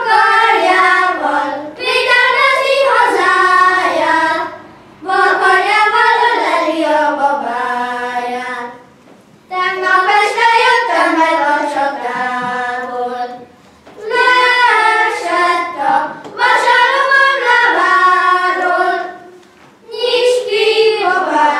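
A group of young schoolchildren singing together as a choir, in phrases of a few seconds with short breaks between them.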